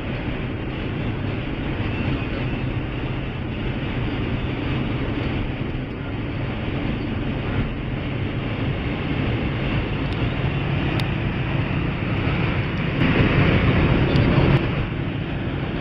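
VW Golf 3 Variant's diesel engine pulling hard at high Autobahn speed, heard from inside the cabin as a steady drone under wind and tyre noise. About 13 seconds in a louder rush swells for under two seconds.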